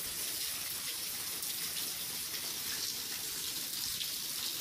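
Steady rain falling, a continuous even hiss of water.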